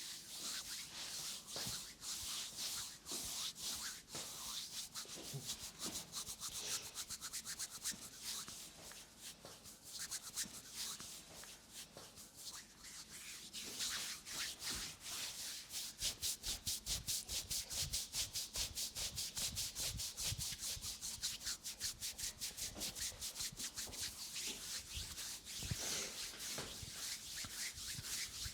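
Hands rubbing briskly over bare skin in a body massage, a dry swishing stroke repeated over and over. It is uneven at first, then from about halfway becomes a fast, steady back-and-forth of several strokes a second with soft thuds underneath.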